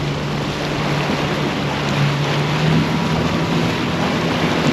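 Boat's outboard motor running steadily with a constant low hum, under a wash of wind and water noise.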